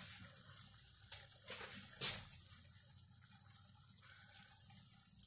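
Mushrooms sizzling and simmering in their juices in a frying pan, a steady soft hiss, with a short tap about two seconds in.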